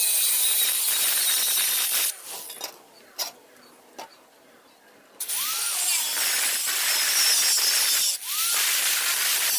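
Power tool cutting under load: a loud, steady rasp that stops after about two seconds. A few faint clicks follow, then it starts again about five seconds in, with a brief break near eight seconds.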